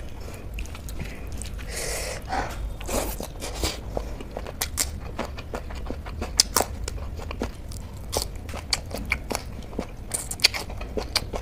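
Close-miked eating: chewing and crunching with many short, sharp mouth clicks, including bites into raw spring onion.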